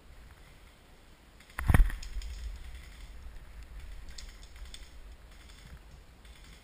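One sharp knock about two seconds in, followed by scattered crackling of dry leaves and twigs as someone shifts and moves through leaf-covered undergrowth.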